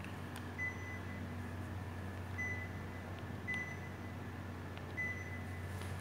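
Panasonic CS-PC18DKH-7 split air conditioner's indoor unit beeping four times, short high beeps spaced a second or two apart, each one acknowledging a command from the remote control. A steady low hum runs underneath.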